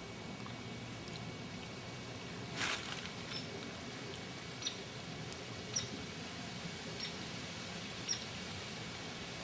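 Lakeside ambience: a steady low wash of rippling water and wind, with a brief rustle about two and a half seconds in and short, high squeaky chirps every second or so.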